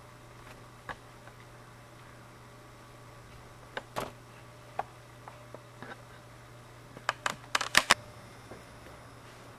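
Camera handling noise: scattered clicks and knocks, with a quick run of louder clicks near the end, over a steady low hum.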